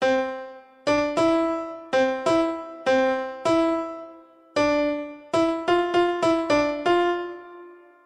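GameTime GT Jams electronic keyboard panel playing sampled piano tones: a simple tune of about fourteen single notes, each starting sharply and fading away before the next.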